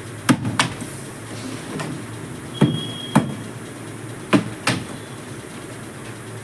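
A plastic water bottle being flipped and landing on a tiled floor three times, each landing a sharp knock followed by a second knock a moment later.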